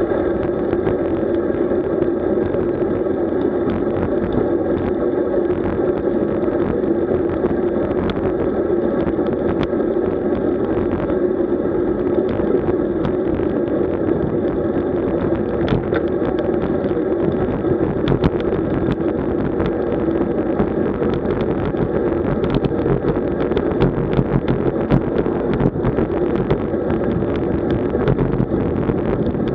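Steady rushing and rumbling of wind and road noise from a moving road bicycle, with scattered light clicks and knocks in the second half.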